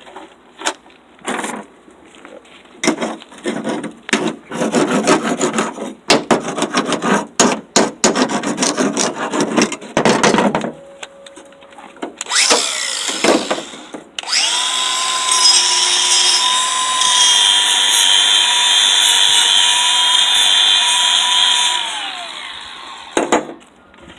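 Slag being cleaned off a fresh flux-core weld bead. For about ten seconds there are rapid, irregular scraping strokes on the steel. Then a power tool, most likely an angle grinder, runs steadily for about seven seconds at a fixed pitch and winds down to a stop.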